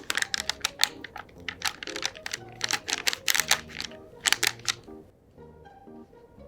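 Rapid clusters of sharp clicks, like tapping or typing, over light background music; the clicking dies away about five seconds in, leaving the music.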